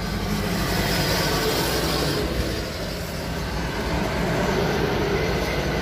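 Steady engine rumble with a hiss of noise over it, even and unbroken.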